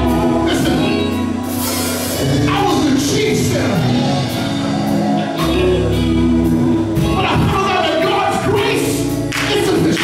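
Live gospel music: a male lead singer with backing vocalists, over electric guitars and a steady low bass line.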